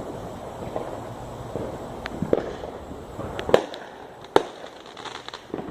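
Distant fireworks going off: a scatter of sharp pops and cracks, the loudest two about three and a half and four and a half seconds in.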